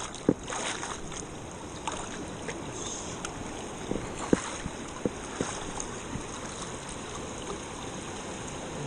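Steady rush of a flowing river, with scattered short sharp knocks over the first six seconds or so.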